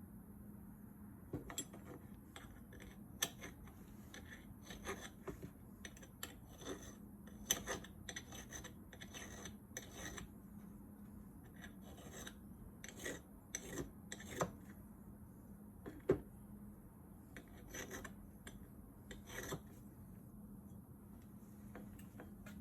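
Faint, irregular strokes of a triangle file scraping the cutting edges of an old Milwaukee self-feed drill bit, with pauses of a second or more between them, over a steady low hum.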